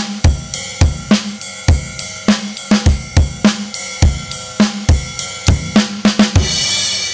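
Drum kit playing a steady groove of kick, snare and hi-hat. Near the end it stops on a crash cymbal that rings out.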